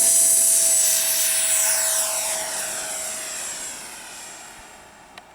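70mm electric ducted fan of a Freewing Hawk T1 RC jet on 6S, running at full throttle with a steady high whine. The whine fades away over the last few seconds as the jet moves off. A short click comes near the end.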